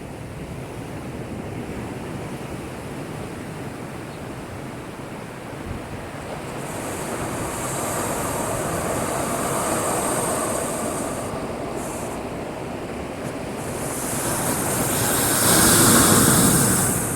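Heavy surf from a typhoon swell breaking against a breakwater. It is a steady rushing that swells twice and is loudest near the end.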